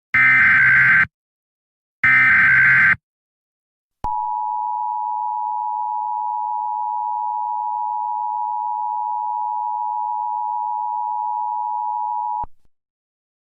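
Emergency Alert System broadcast tones. Two harsh one-second bursts of SAME header data, about a second apart, are followed after a short gap by the EAS two-tone attention signal. The attention signal is held steady for about eight seconds and then cuts off suddenly.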